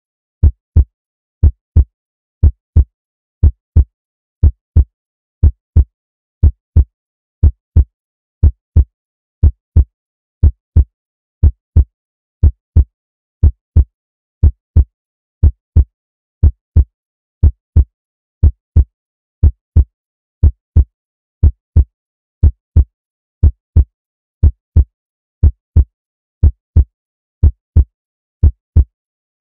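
Heartbeat sound effect: a steady lub-dub, two short low thumps close together, repeating about once a second.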